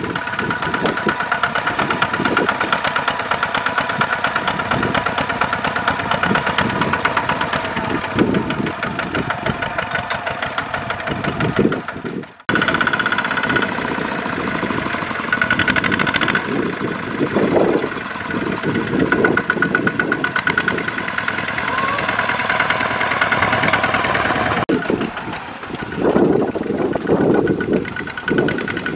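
Kubota two-wheel walking tractors' single-cylinder diesel engines chugging under load as they pull loaded trailers through mud: a rapid, steady beat of firing pulses. The sound drops out for a moment about halfway through.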